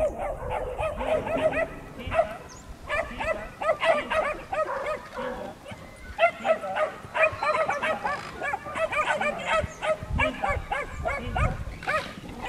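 Kelpie puppies yapping in quick runs of short, high barks.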